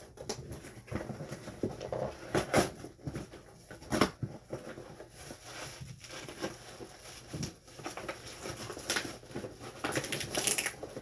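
Parcel packaging and bubble wrap being handled and pulled apart by hand: irregular rustling and crinkling with short taps, a louder crackle about four seconds in and more near the end.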